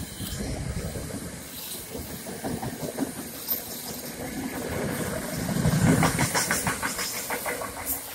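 Passenger train passing the platform at speed, its wheels on the rails making a steady rushing hiss and rumble. The rumble swells about two-thirds of the way through, followed by a quick run of wheel clicks over the rail joints.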